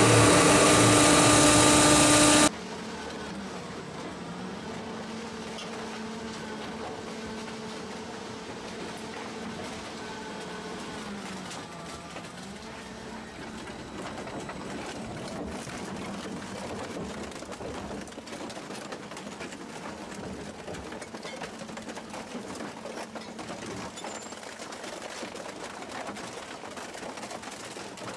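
Firewood processor running loudly, cut off abruptly about two and a half seconds in. After the cut comes the much quieter, steady running of a car shredder, with a faint wavering hum under mechanical grinding noise as a car body sinks into the hopper.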